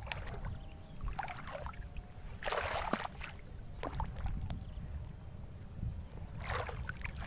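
Water sloshing and splashing close by, with two louder splashes about two and a half seconds in and near the end, over a steady low rumble of wind on the microphone.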